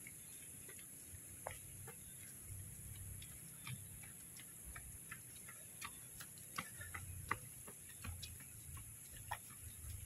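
Faint, irregular ticks and clicks, well over a dozen, scattered through, over a steady high-pitched hiss and a low rumble.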